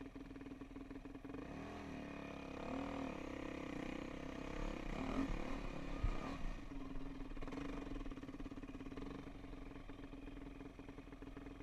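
Dirt bike engine running under a rider's throttle, heard from a camera on the bike, with the engine note rising and falling a few times in the middle.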